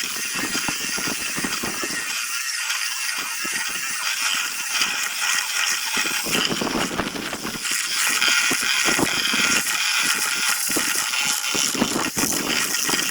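A power sanding tool abrading zelkova root wood, giving a steady gritty hiss broken by irregular scraping and rattling strokes as it is worked over the surface.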